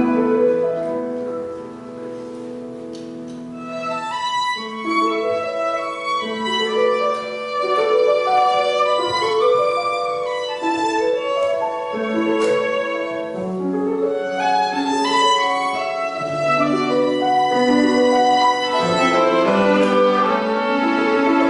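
Violin playing a melody over a second, accompanying instrument. The music drops quieter about two seconds in, then builds again with moving notes.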